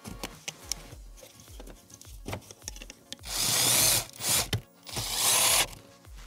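Cordless drill/driver running in three short bursts, about three seconds in, each with a whirring motor whine; the first and last bursts are the longest.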